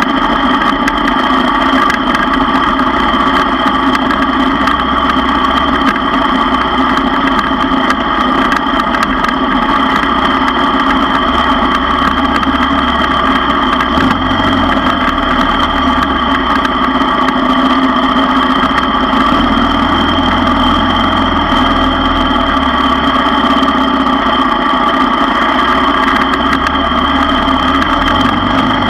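ATV engine running steadily at low trail speed, heard from on board, its pitch barely changing.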